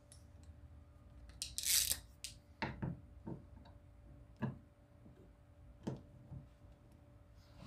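Workshop handling noises: a short scraping rasp about a second and a half in, then several separate light knocks and clicks spread over the following seconds.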